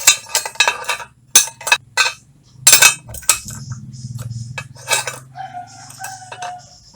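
Metal-on-metal clinks and knocks, about ten in an irregular run, as steel parts are handled against steel angle bar, over a faint steady low hum.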